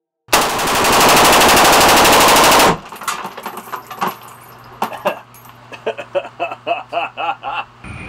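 Rifle firing one long full-auto burst of about two and a half seconds, echoing in an indoor test-fire booth, then stopping abruptly. Quieter clicks and rattles follow.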